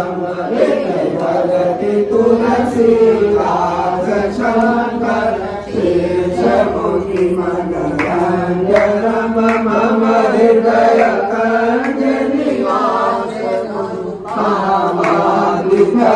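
A group of voices chanting a Hindu devotional hymn together in a steady, continuous group chant, with repeated sharp strikes over the singing.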